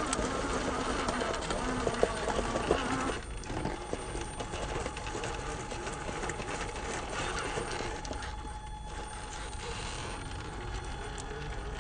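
Traxxas TRX-4 RC crawler's electric motor and geared drivetrain whining at crawling speed as it climbs rock, the whine steady and dropping slightly in pitch. Clicks and knocks, from tyres and chassis scraping on the rock, are frequent in the first three seconds.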